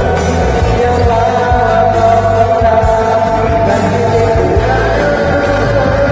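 Music with singing: a held, gliding vocal melody over a steady bass line.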